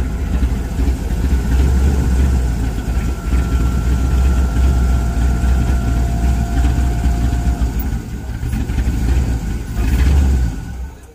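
Late-1960s Chevrolet pickup engine idling steadily with the hood open, then shut off about ten and a half seconds in.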